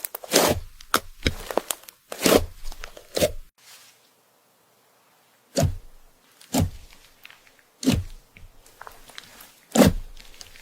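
Knife slicing through something crisp, a string of sharp crunchy cuts about a second apart, with a pause of about two seconds near the middle.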